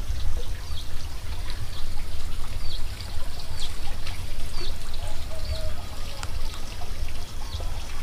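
Water trickling into a small fish pond, under a steady low rumble. A bird gives short, high chirps about once a second throughout.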